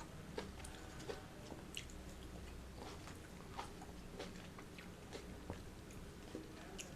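Close-miked biting and chewing of juicy fresh fruit: irregular wet clicks, smacks and squelches, several a second.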